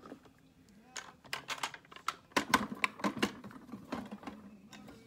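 Irregular run of clicks and light knocks from small objects being handled, densest about halfway through.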